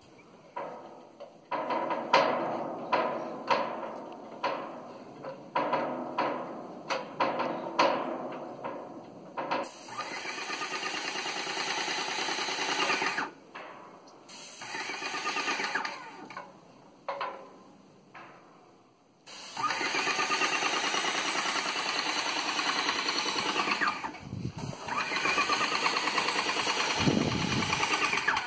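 Electric airless paint sprayer running while paint is sprayed. It comes in many short bursts at first, then runs in longer steady spells of a few seconds each, with brief stops between.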